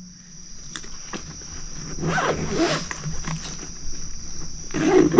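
Zipper of a motorcycle tank bag being worked, with rustling of the bag, over a steady high-pitched drone of night insects.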